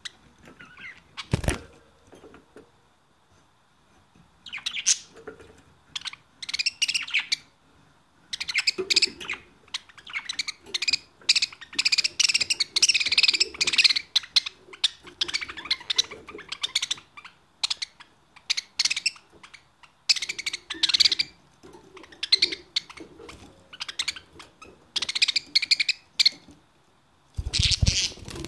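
Budgerigar chattering and warbling in bursts of quick, high chirps with short pauses between, busiest in the middle. A sharp knock about a second in and a short loud rustle near the end.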